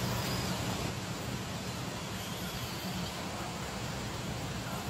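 Steady rushing noise of fast-flowing river water, with an electric RC scale crawler faintly whining now and then as it drives across wet, mossy rock.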